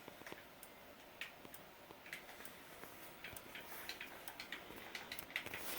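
Simplex TrueAlert strobe flashing in free-run mode: faint, uneven ticks and clicks, about two or three a second.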